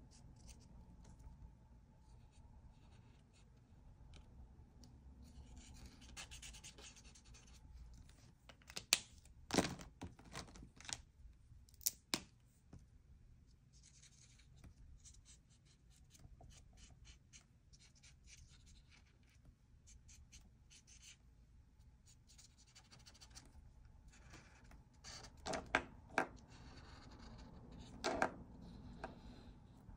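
Ohuhu alcohol markers scratching across paper in short scribbled strokes, faint, with a few sharp clicks and knocks about nine to twelve seconds in and again near the end.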